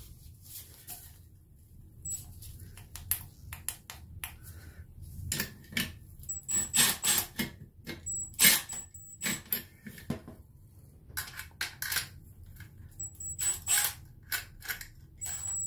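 Socket wrench on an extension clicking and clinking against the nuts on the clutch master cylinder's mounting studs as they are run down. Irregular groups of sharp metallic clicks, some with a short ring.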